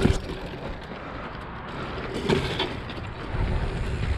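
Wind on the camera microphone and bike tyres rolling over packed dirt as a dirt jump bike is ridden, a steady rushing noise, with a sharp knock right at the start and a smaller one about two seconds in.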